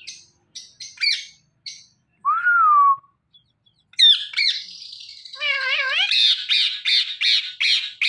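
Indian ringneck parakeets calling: a few short chirps, then a single whistled note that rises and falls. About halfway through come a wavering call and a run of harsh screeches, about three a second.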